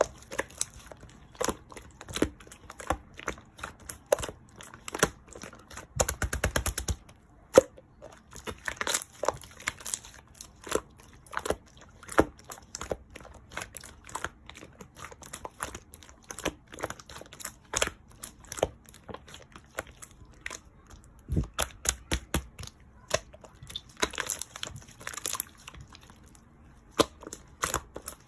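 Clear slime being squished and pressed by hand, making sharp popping clicks and crackles at irregular intervals, with a quick run of small pops about six seconds in.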